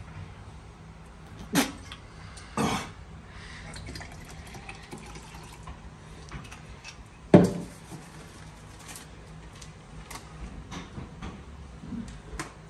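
Liquid poured from a small glass bottle into a plastic cup, with a few sharp knocks and clinks of the bottle and cup being handled and set down on a wooden locker shelf. The loudest knock comes about seven seconds in.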